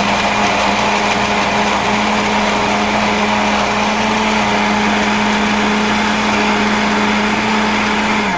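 Countertop blender motor running steadily at full speed, blending a liquid drink, with a constant hum; it is switched off and stops abruptly at the very end.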